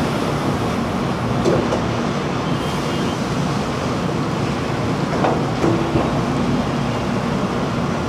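Wet bin dumper at work over a fruit flume tank: a steady wash of running and splashing water with machinery noise, and a few short knocks about one and a half and five seconds in.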